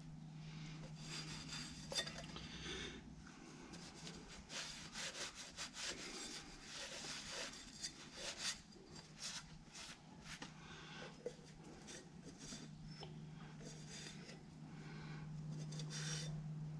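Cloth rag rubbing and wiping the metal oil filter canister, irregular scratchy strokes with a few light clinks as it is handled. A steady low hum runs underneath.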